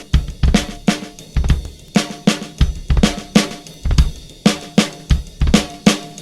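Drum kit playing a steady groove: kick drum and snare hits with hi-hat and cymbals, a hit about every half second.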